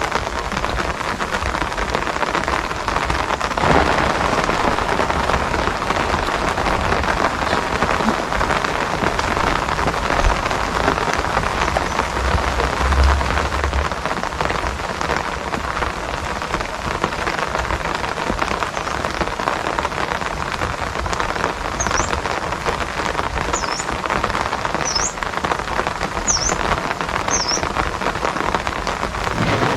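Steady heavy rainfall, a dense even patter, recorded on a phone. Near the end, five short high chirps come through the rain about a second and a half apart.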